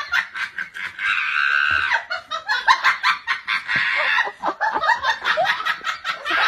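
Hearty human laughter in quick repeated bursts, rising into longer high-pitched shrieks of laughter about a second in and again near four seconds.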